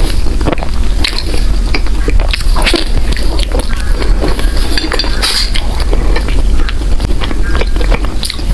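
Close-miked eating sounds: a person chewing soft bread, with many small wet clicks and crackles from the mouth and an occasional light clink.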